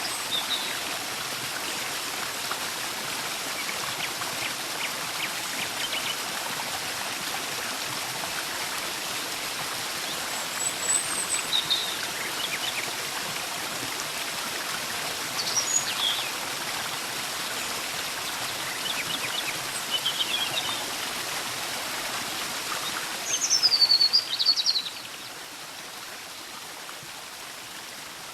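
Steady rush of falling water at the Butakovka waterfall, with scattered bird chirps over it and a louder run of falling calls near the end; a few seconds before the end the water sound becomes quieter.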